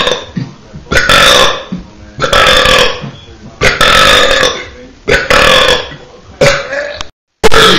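A series of about seven short, loud burps, one every second or so. The sound drops to dead silence for a moment near the end, just before the last burp.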